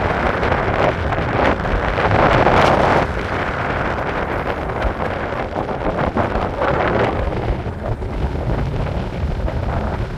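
Wind buffeting the microphone of a phone carried on a moving Onewheel, a steady rumble that is loudest about two to three seconds in.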